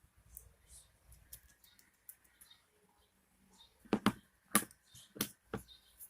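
Sticky homemade slime being squeezed and pulled by hand, making small wet clicks and pops. These grow louder near the end into about five sharp snaps roughly half a second apart.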